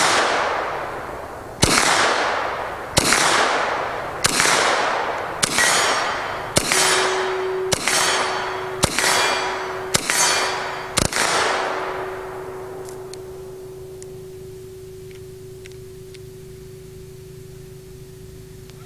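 A bullpup rifle fired in single shots, about ten in a row a little over a second apart, each with a long echo dying away. The firing stops about eleven seconds in, leaving only a faint steady tone and low background noise.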